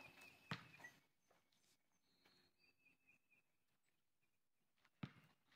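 Near silence outdoors, with a soft knock about half a second in and another near the end, and faint high chirps in between.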